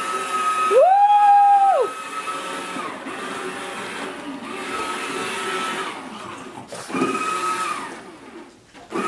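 Electric motor of a battery-powered Thomas the Tank Engine ride-on toy train whining as it runs, its pitch sliding up as it starts and down as it stops, several times. About a second in, a louder tone rises, holds for about a second, then falls away.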